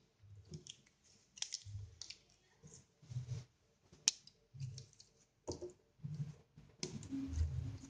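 Scattered light clicks and rustles of banana-leaf scraps being gathered up by hand from a stone countertop, irregular and soft, with one sharp click about four seconds in.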